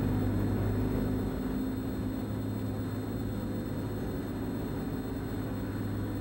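Diesel engine of a container straddle carrier running with a steady drone and low hum, the hum easing slightly after about a second and a half.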